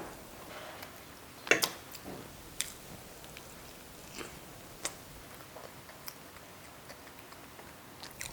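A person chewing a honey-drizzled submarine sandwich close to the microphone. Scattered sharp mouth clicks and smacks, the loudest about a second and a half in.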